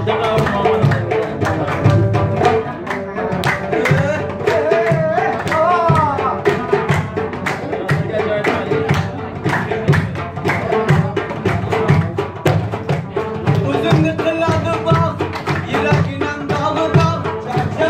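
Live Afghan Uzbek folk music: a plucked dambura and a second long-necked lute playing a melody over a steady frame-drum beat.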